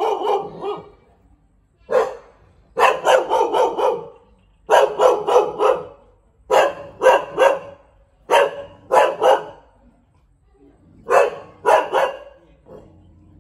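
Thai Bangkaew dog barking at the camera in short runs of two to four sharp barks, about six runs with brief pauses between.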